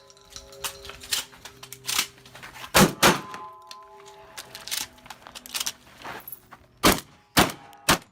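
A rapid string of gunshots from a timed course of fire, the loudest coming in pairs and triples, with lighter clicks and knocks between them. After some of the hits, steel targets ring on with a clear metallic tone.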